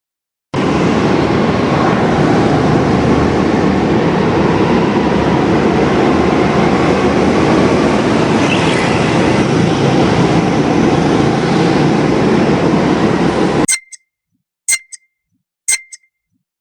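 Small go-kart engine running steadily, cutting in and out abruptly as a played clip. Near the end it stops and sharp clock-like ticks follow, about one a second.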